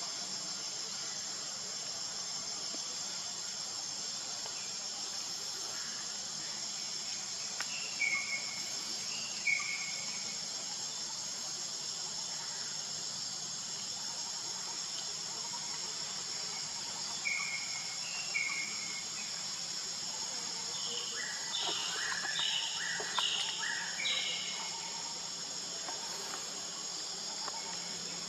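Steady, high-pitched chorus of insects such as crickets, with a few short chirps now and then and a quick run of them about three quarters of the way through.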